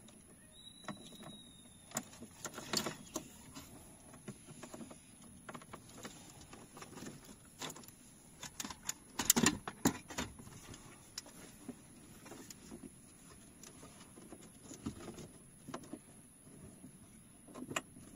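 Plastic clicks, knocks and rustling from the wiring harness and a large touch-screen car radio being handled and fitted into a dashboard, with a cluster of louder knocks about nine to ten seconds in.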